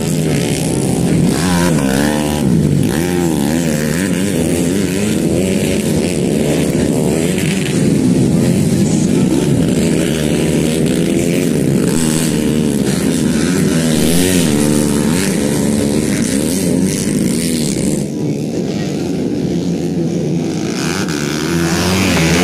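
Several modified underbone race motorcycles revving hard, engines rising and falling in pitch over one another as the riders open and close the throttle.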